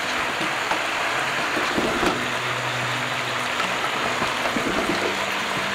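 Beef nihari meat with spice paste and onion sizzling in a large pot, a steady hiss with scattered light clicks. A faint low hum runs beneath.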